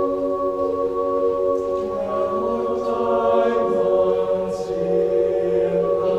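Co-ed a cappella group singing sustained chords with voices only, no instruments. The low voices step down in pitch a couple of times under the held upper notes.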